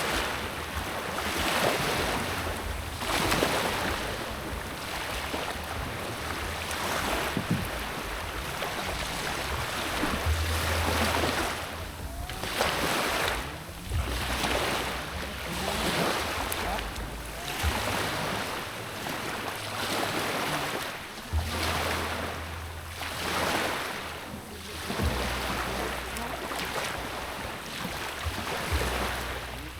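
Sea waves washing in and out in repeated swells every couple of seconds, with wind gusting and rumbling on the microphone.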